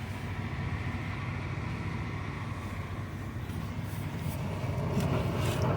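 Semi truck's diesel engine running steadily at idle, a low even hum that grows a little louder near the end.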